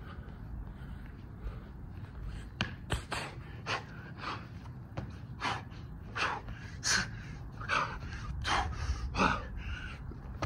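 A man breathing hard and fast from the exertion of doing burpees, gasping and panting. The sharp breaths begin about two and a half seconds in and come about one and a half a second.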